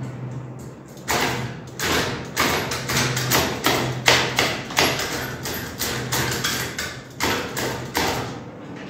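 Royal Deluxe ceiling fan running fast on a 7.5 µF capacitor in place of its stock 3.5 µF one, with a steady low motor hum. Over it, from about a second in until near the end, a run of irregular sharp knocks about two a second.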